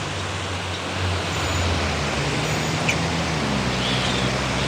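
Road traffic: passing motor vehicles with a steady low engine hum over tyre and road noise.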